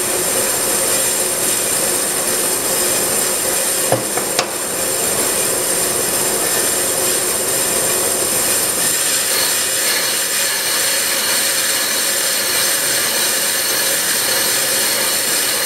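Accu-Turn 8944 brake lathe running with its cutting bits taking a rough cut of about ten thousandths off each face of a brake rotor, which is wrapped in a rubber damping band: a steady, even scraping noise with a faint steady hum. A brief click about four seconds in.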